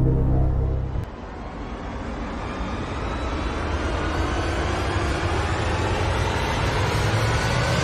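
Suspense music cuts off about a second in. A rushing noise follows and swells steadily, its pitch slowly rising.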